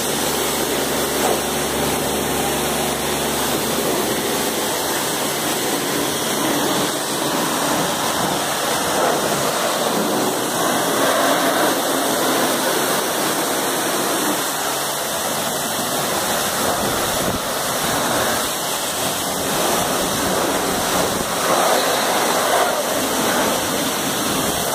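IPC PW-C55 pressure washer running, with a high-pressure water jet hissing and spattering steadily against a motorcycle wheel and the wet concrete. A steady pump hum is also heard, plainest in the first few seconds.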